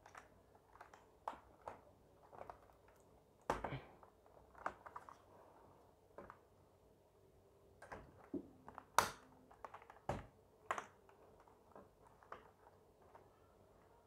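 Scattered clicks, taps and knocks from a laptop being handled on a glass tabletop as it is turned over and its lid opened, with a few louder knocks about a third of the way in and again about two-thirds of the way in.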